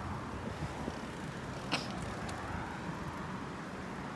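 Bicycle riding noise on a wet paved path: wind rumbling on the phone microphone with tyre noise, and a sharp click just under two seconds in.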